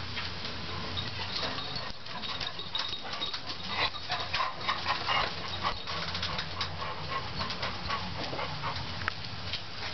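A dog whimpering, with scattered clicks and taps throughout.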